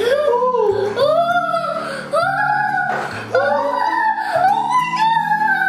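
Background music: a song with a sung melody of long held notes over a bass line.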